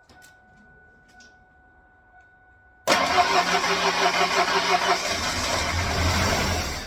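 Freshly installed replacement engine in a 1996 Ford Ranger on its first start attempt: after about three seconds of quiet the starter suddenly cranks it with a quick even pulsing. About two seconds later a deeper engine sound joins, as if it fires briefly, and it dies away just before the end.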